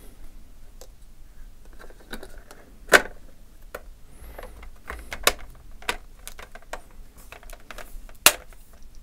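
Display bezel of an ASUS UX303LA laptop being fitted onto the display lid: a series of sharp plastic clicks and knocks, the loudest about three seconds in and another near the end.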